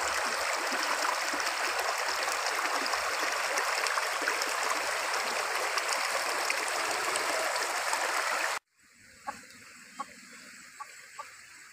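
Shallow stream rushing and splashing over rocks, a steady loud rush of water that cuts off abruptly about two-thirds of the way in. Then a much quieter background with a few short, sharp sounds.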